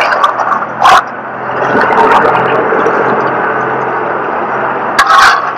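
A vehicle engine idling steadily, with a sharp knock about a second in and another near the end.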